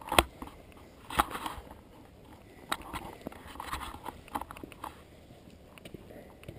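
Footsteps crunching on grit and debris over a concrete floor: irregular sharp crunches about once a second, the loudest near the start, with light scuffing in between.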